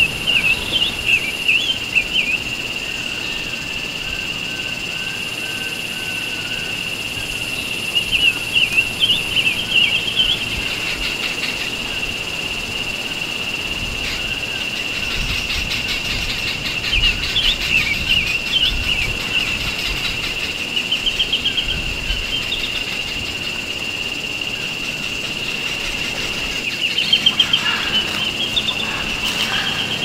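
A songbird singing short, quick twittering phrases, about five bursts of a couple of seconds each, over a continuous steady high-pitched tone.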